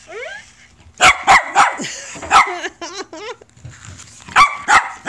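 Sharp dog barks in short groups: three in quick succession about a second in, a single one a little later, and three more near the end.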